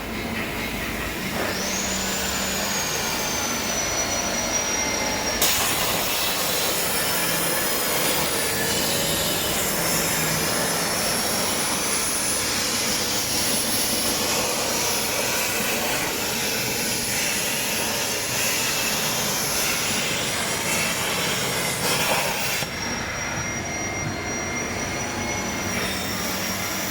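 CNC air plasma cutting machine running: a steady, loud hiss of compressed air through the torch with a thin high whistle. A harsher, brighter hiss sets in about five seconds in and drops back about 23 seconds in.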